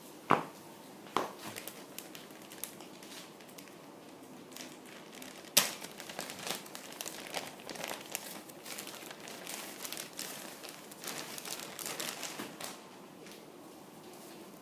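Packaging being opened by hand, its wrapping crinkling and rustling. Three sharp clicks come in the first six seconds, then a stretch of dense crinkling that dies down near the end.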